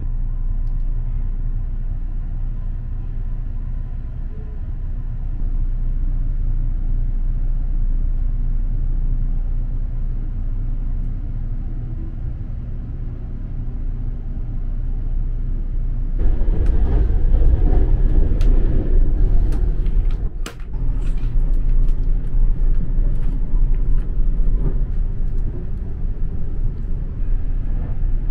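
Electric express train running, heard from inside a private compartment: a steady low rumble as it pulls out and gets under way. About sixteen seconds in it grows louder, with many sharp clicks and knocks from the wheels and track over the rumble.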